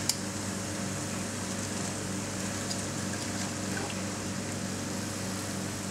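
Battered courgette flowers frying in a deep fryer, the hot oil giving a steady hiss over a low, even hum. This is their second dip in the oil to make them really crisp.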